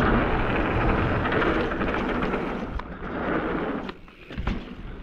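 Wind rushing over the helmet- or chest-mounted camera's microphone, with the rumble of a mountain bike's tyres on the trail and a few sharp knocks; it dies down toward the end.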